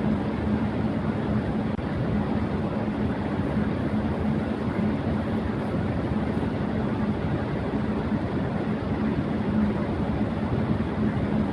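Electric fan running at high speed: a steady rush of air with a low, even hum underneath.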